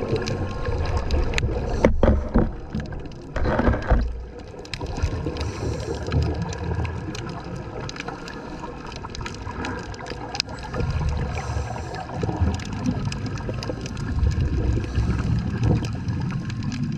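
Underwater ambience: a scuba diver's exhaled regulator bubbles rushing out in loud gurgles about two and four seconds in, over a low steady rumble with scattered faint clicks.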